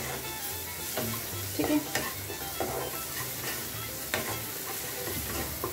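A spoon stirring and scraping a sizzling masala of onion, peas and tomato in a non-stick kadai, in repeated short strokes over a steady frying hiss.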